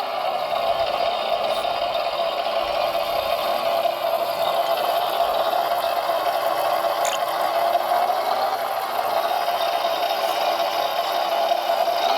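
Electric motor and gearing of a radio-controlled model construction vehicle running steadily, a constant whir.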